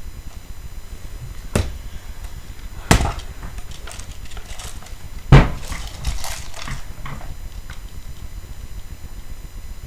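A few separate sharp clacks and knocks from an airsoft AK-47 rifle being handled, the loudest about five seconds in.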